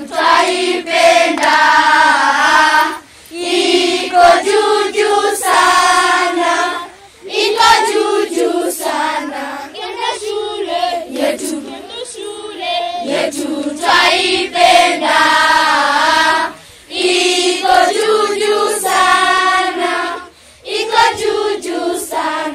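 A group of children singing together as a choir, in phrases with short breaks between them.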